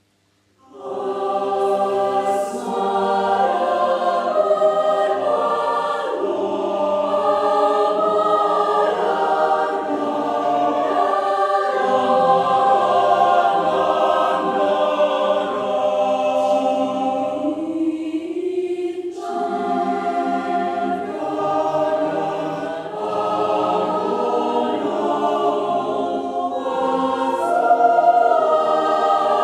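Student choir singing in several parts at once, holding chords. The choir comes in about a second in after a moment of silence, and breaks briefly between phrases about two-thirds of the way through.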